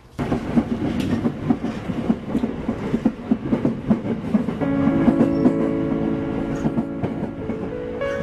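Commuter train running, a steady rumble with a rhythmic clatter of wheels over rail joints. About halfway through, held keyboard notes come in over it.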